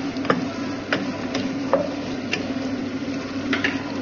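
A spatula tapping and scraping against a nonstick pot while stirring sautéing onions, chili and dried anchovies, heard as irregular sharp clicks over a steady low hum.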